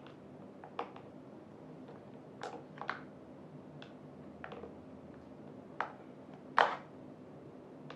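Scattered light clicks and knocks, about six at irregular intervals, from chair parts and tools being handled during assembly; the loudest comes late.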